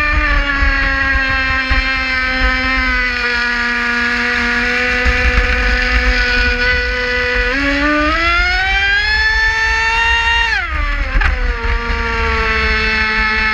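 Traxxas Spartan RC speedboat's brushless electric motor whining under power, with wind and water rushing on the boat-mounted camera. The whine holds steady, climbs in pitch about eight seconds in, drops sharply near eleven seconds, then settles at a steady pitch again.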